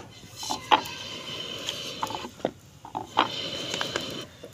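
Wooden rolling pin rolling a paratha out on a board: a string of light, uneven clicks and knocks, about one a second, as the pin moves and taps against the board.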